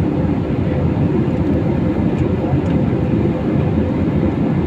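Airliner cabin noise from inside the passenger cabin: a steady rumble of jet engines and rushing air, with a faint steady hum on top.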